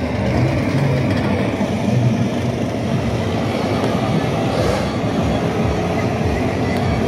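Small cars of a children's carnival ride rolling and rattling around their track, a steady rumbling clatter.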